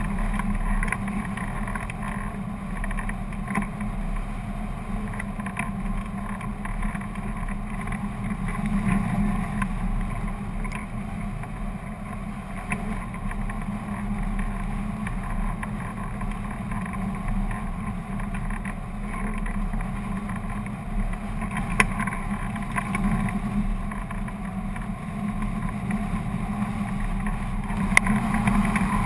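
Wind rushing over a camera mounted on a hang glider in flight, a steady noise with a couple of sharp clicks in the later part.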